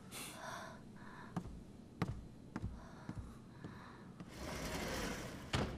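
Quiet room with four or five soft taps or knocks about every half second, then a short swell of breathy hiss and a sharp click near the end.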